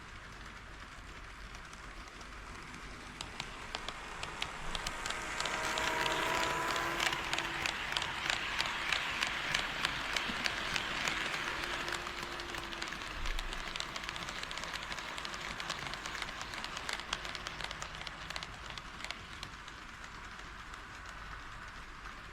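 HO scale model train running past on KATO Unitrack. A rush of wheel and motor noise swells up from about three seconds in and fades away over the second half, with regular clicking of the wheels over the rail joints, about two clicks a second at its loudest.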